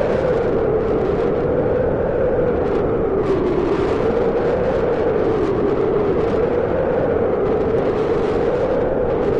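Sound effect of air rushing out through a breach in a spaceship's hull: a loud, steady rush of wind whose pitch slowly wavers up and down.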